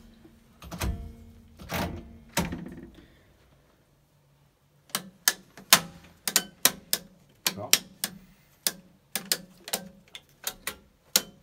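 Toggle switches on a train driver's cab control panel flicked one after another: a quick run of sharp plastic clicks, about two to three a second, starting about five seconds in. Before that come a few dull knocks from the driver's traction/brake controller lever being moved through its notches.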